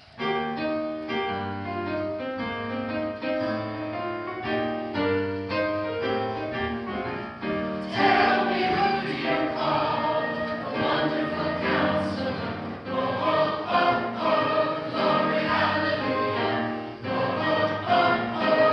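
A church choir singing a Christmas-season song with accompaniment. The music opens with about eight seconds of instrumental chords, then the choir comes in and the sound grows fuller.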